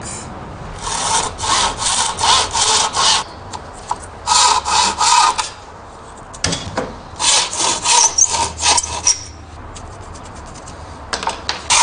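Hand saw cutting through thin garden sticks, in several short bouts of quick back-and-forth strokes, about three to four strokes a second, with brief pauses between bouts as each stick is cut to length.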